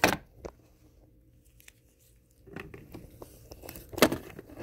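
Handling noise from a soft fabric gun bag being opened and moved about: a rustle and knock at the start, quiet small rustles, then a louder rustling knock about four seconds in.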